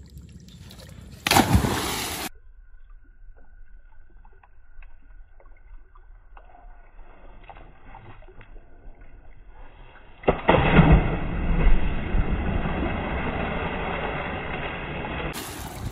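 A person plunging into a muddy irrigation canal: a short loud splash about a second in, then about ten seconds in a big splash that churns and sloshes for several seconds, slowly fading.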